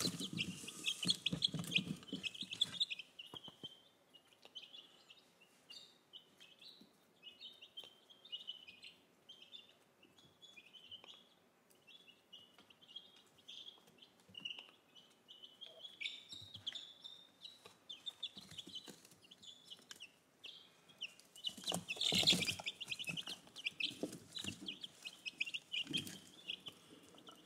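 A brood of young chicks peeping, many short high peeps overlapping, louder near the start and again about three-quarters of the way through.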